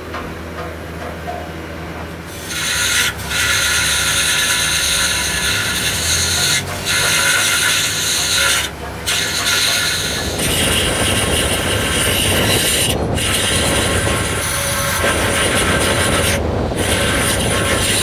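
Grinder with a small wheel on a long shaft grinding a cast iron tractor transmission housing: a loud, high-pitched whining screech starting about two seconds in. It cuts out briefly several times, and a heavier rasp joins about ten seconds in.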